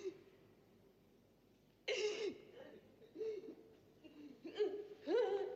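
A woman sobbing: breathy, gasping sobs with a wavering, breaking pitch. They start about two seconds in, and come faster near the end.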